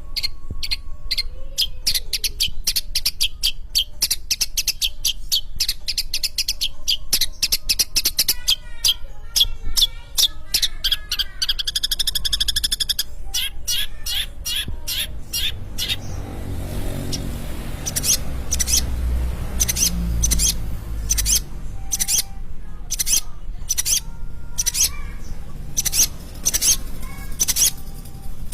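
Long-tailed shrike singing a fast, chattering string of short, sharp high notes and trills, then sparser, louder repeated sharp notes in the second half. A low rumble comes up in the middle.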